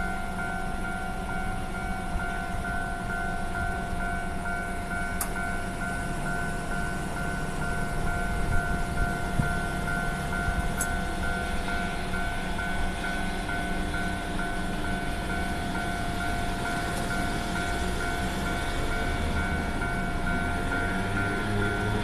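Japanese railway level-crossing alarm ringing, its electronic bell repeating at an even beat to warn that a train is coming, over a low rumble.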